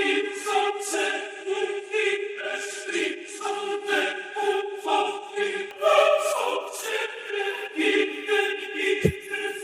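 Dramatic background music: a choir singing held chords over a steady pulse. A low thump near the end.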